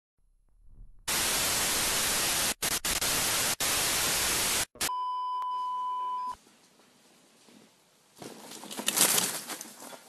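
Intro sound effects for a film-countdown leader: a burst of loud static hiss with a few brief cut-outs, then a steady beep tone held for about a second and a half. Near the end a rush of noise swells and fades.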